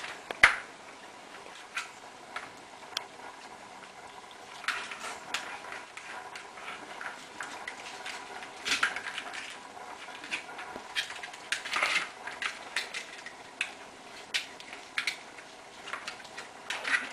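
Kittens batting at a plastic circuit ball-track toy: the ball and the hollow plastic track clatter with irregular clicks and knocks, the loudest a sharp knock about half a second in.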